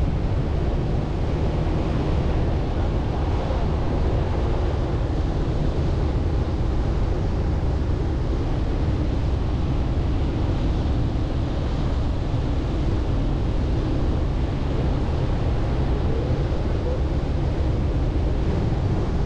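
Chevrolet Colorado ZR2 Bison pickup driving along soft beach sand: a steady low rumble of engine and tyres mixed with wind noise, unchanging throughout.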